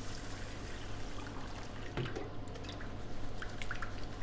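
Water poured from a clear plastic container onto rice in a stainless steel hotel pan, a steady pour, with drips and light knocks in the second half.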